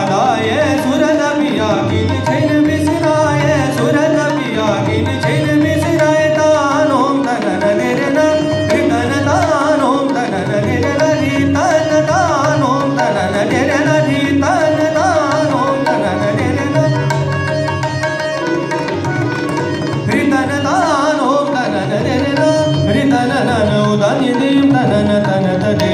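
Indian classical song performed live: a singer's ornamented melodic runs, with quick wavering turns of pitch, over tabla accompaniment and sustained drone tones.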